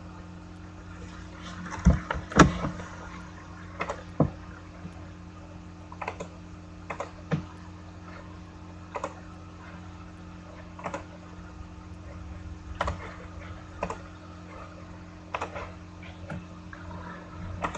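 Scattered short clicks and light knocks, about a dozen at uneven intervals and loudest about two seconds in, over a steady low hum.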